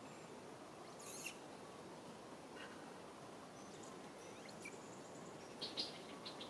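Faint outdoor ambience among trees, a steady low hiss of background noise with a few short, high-pitched chirps: one about a second in and a quick cluster near the end.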